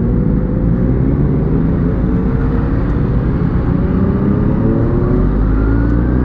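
Motorcycle engine running as the bike pulls away slowly through traffic, its pitch rising steadily.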